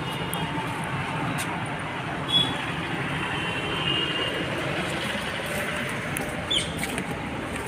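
Steady outdoor city traffic noise, with a few short high chirps or whistles rising above it.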